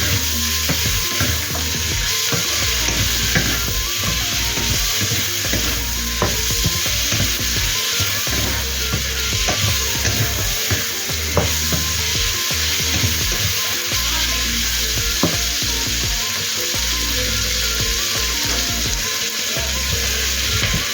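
Pork and mushrooms sizzling as they fry in a pan, stirred with a utensil that clicks against the pan now and then.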